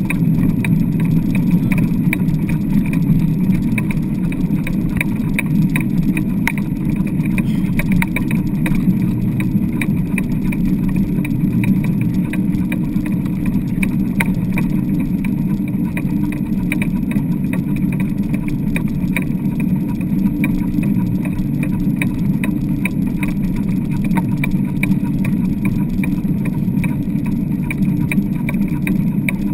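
Steady rumbling noise of a dry-land dog rig rolling over wet beach sand, mixed with wind on the microphone, with faint irregular rattling ticks throughout.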